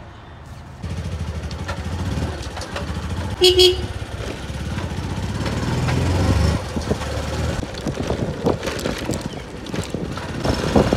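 Bajaj Platina's single-cylinder four-stroke engine running as the motorcycle is ridden, still on its stock silencer, getting louder as it accelerates over the first six seconds. A short horn beep sounds about three and a half seconds in.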